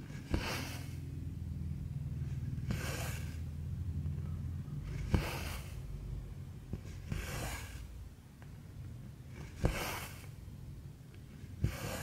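Cotton embroidery thread being pulled through cross-stitch fabric, a soft swish repeating about every two and a half seconds, six in all, with a sharp tick from the needle piercing the fabric at the start of several strokes.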